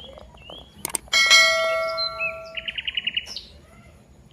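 A metal object struck once, ringing with several clear tones that fade over about a second and a half. Birds chirp in the background.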